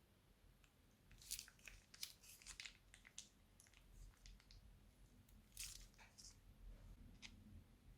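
Faint crackling and squishing of crunchy slime worked out of plastic piping bags: small sharp crackles in short scattered clusters, the densest one about a second in and another near the middle.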